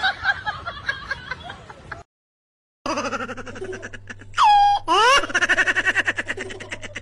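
A ginger domestic cat yowling after a short silent break: long calls that rise steeply in pitch, then a fast stuttering run that sounds like laughter. Before the break, a laughter-like voice fades out.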